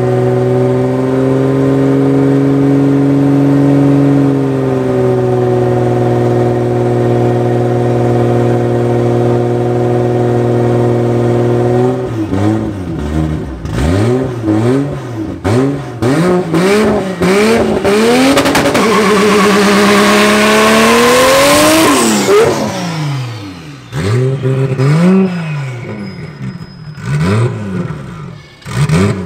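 Heavily tuned turbocharged drag car engine, running steadily at first, then revved in a string of quick blips, one long climbing rev that cuts off sharply, and more short blips near the end.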